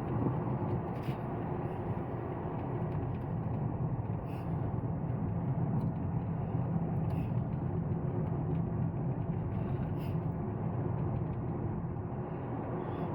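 A car driving along a road: steady engine and tyre noise, with a few light clicks or rattles scattered through it.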